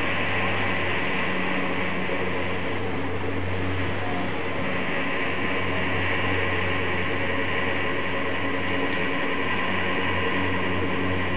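A steady mechanical hum with an even hiss, holding the same pitch and level throughout.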